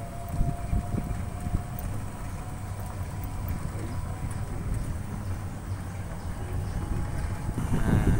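Engine and road noise of an open-sided passenger shuttle as it drives along, heard from a seat on board, with a steady low sound that grows a little louder near the end.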